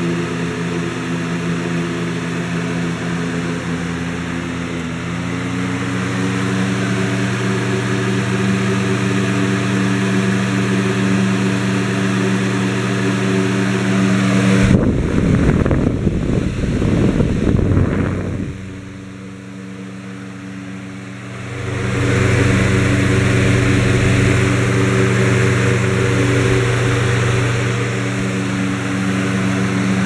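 Lasko box fan running with a steady motor hum and air rush. About fifteen seconds in, its airflow buffets the microphone with a rumbling wind noise for a few seconds. This is followed by a briefly quieter, duller stretch before the steady hum returns.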